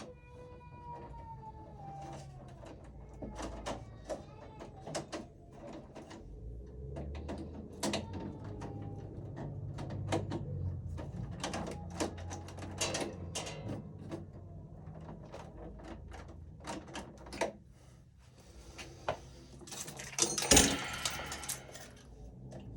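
Scattered clicks, taps and knocks of hands and a screwdriver working wires and terminals in a residential breaker panel, with a burst of scraping near the end. A short falling pitched sound comes at the very start.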